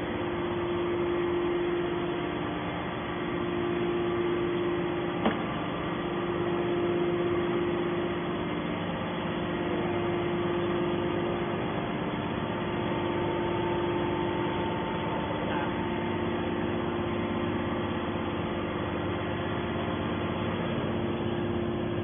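Hydraulic power unit of an HBM200 metal scrap baler running: a steady motor-and-pump hum with a strong mid-pitched tone, and one short click about five seconds in.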